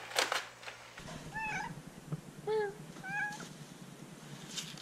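A domestic cat meowing: three short calls, each bending in pitch, about a second apart, after a brief scuffing noise at the very start.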